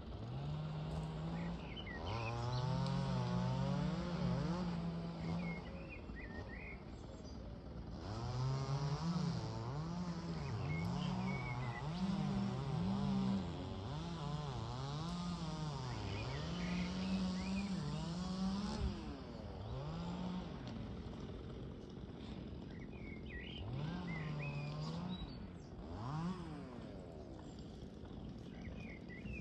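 A small engine revving up and down unevenly, its pitch rising and falling in quick swings, with birds chirping.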